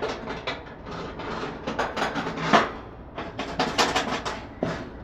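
A homemade wire rack clattering and scraping against the metal inside of a toaster oven as it is set into place, a run of irregular metallic clicks and rattles, loudest about two and a half seconds in and again near four seconds.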